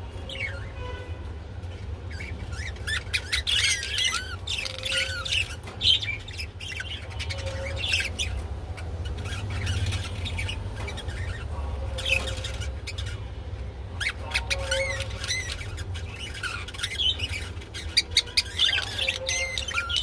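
Budgerigars chirping and warbling in repeated bursts of quick, chattering notes, the mating-time calls of a breeding pair, over a steady low hum.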